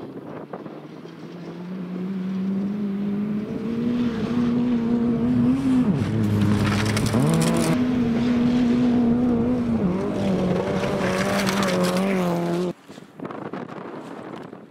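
Rally car engine revving hard on a gravel stage, growing louder as it approaches and holding high revs, with brief drops in pitch as the driver lifts or changes gear, and rough gravel noise from the tyres. It cuts off suddenly near the end, leaving wind on the microphone.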